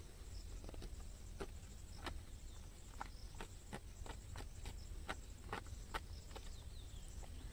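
Paper crackling in short, scattered ticks as a letter is pulled from its envelope and unfolded, over a low steady rumble.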